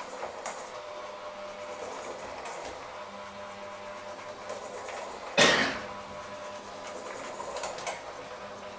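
Electric hand mixer running steadily, a motor whine with its beaters churning a thick mixture in a stainless steel bowl. A brief loud scrape comes about halfway through.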